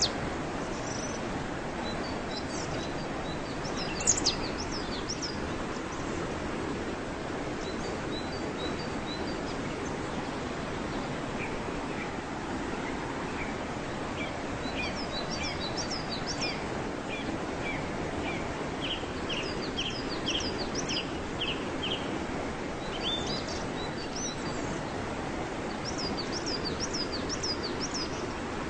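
Waterfall rushing steadily, with songbirds chirping over it; in the second half the birds call in quick runs of repeated notes.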